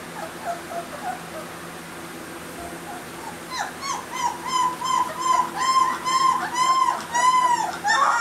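Three-week-old Newfoundland puppy whimpering: faint short squeaks at first, then from about halfway a run of loud cries, each rising and falling in pitch, two or three a second.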